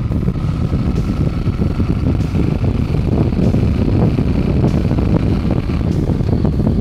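Cruiser motorcycle riding at road speed: steady, heavy wind rumble on the handlebar-mounted action camera's microphone, with the engine running underneath.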